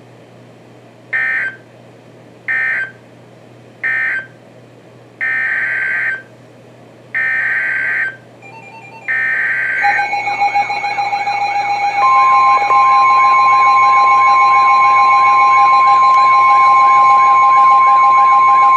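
NOAA Weather Radio SAME data bursts: three short bursts (the end-of-message code for the alert just read), then three longer header bursts announcing the next alert. About ten seconds in a pulsing, wavering alert sound starts, and two seconds later the long, steady Weather Radio warning alarm tone joins it.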